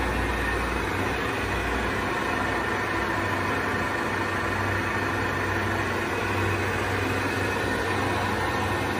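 Southwestern Industries TRAK TRL CNC lathe's spindle running steadily with the chuck spinning: a steady mechanical whir from the headstock drive. A deeper low hum drops away about a second in.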